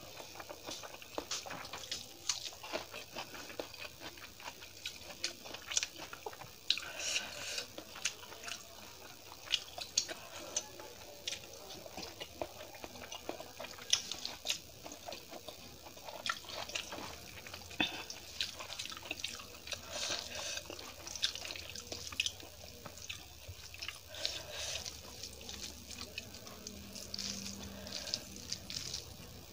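Close-miked wet eating sounds: chewing and smacking on mouthfuls of rice with shahi paneer curry, mixed with squelching as fingers knead the rice into the gravy. A steady run of small wet clicks.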